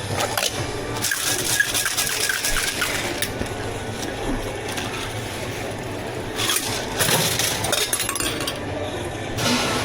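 Hard drink-making items clinking and clattering in short bursts, with denser rattling about a second in and again past the middle, over a steady low hum.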